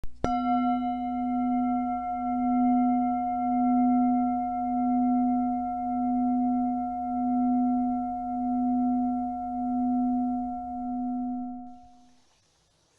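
A singing bowl struck once, ringing with a slow wobble in loudness and several higher overtones over its deep hum, fading out over about twelve seconds.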